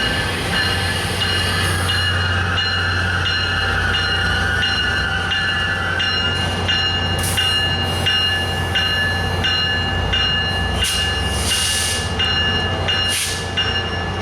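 Tri-Rail commuter train standing at the platform: the locomotive's engine hums steadily while a bell rings over and over, about one and a half strokes a second. Short hisses of air come near the middle and again twice toward the end.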